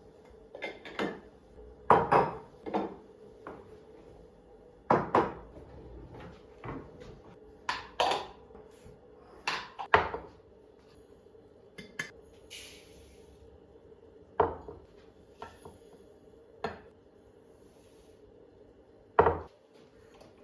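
Kitchen clatter of dishes and utensils: a dozen or so separate sharp knocks and clinks at uneven intervals, with a brief hiss about halfway through.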